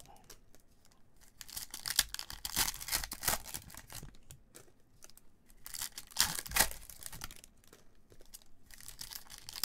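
Foil wrapper of a 2020-21 Topps Chrome Bundesliga card pack being torn open and crinkled by gloved hands, in two bursts of crackling: one from about a second and a half in and another around six seconds in.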